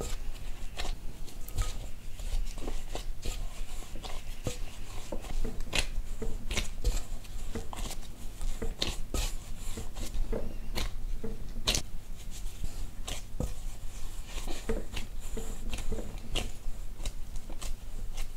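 Gloved hands folding and punching soft yeast dough with flour in a glass bowl: an irregular run of soft pats and squishes with small sharp clicks.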